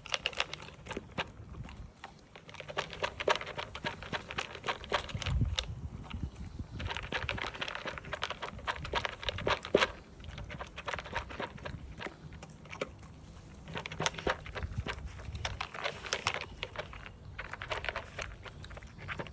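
Dog eating dry food from a plastic slow-feeder bowl: irregular crunching and clicking as kibble is chewed and worked out of the bowl's hollows.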